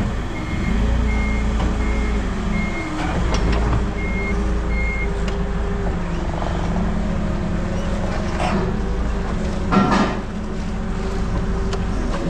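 A vehicle's reversing alarm beeping about every half second over its running engine, stopping about five seconds in. The engine carries on, with a sharp metallic clunk near the ten-second mark.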